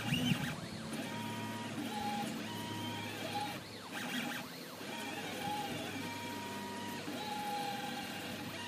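Stepper motors of a 3D printer with a peristaltic-pump icing extruder, whining in a string of short steady tones that stop, start and shift in pitch as the moves change.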